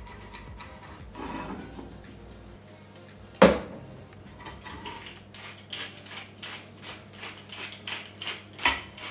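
A glass olive-oil bottle knocks down onto the worktop about three and a half seconds in. From about five and a half seconds a wooden pepper mill grinds in short crunching bursts, two or three a second, while a knife taps lightly on a wooden chopping board.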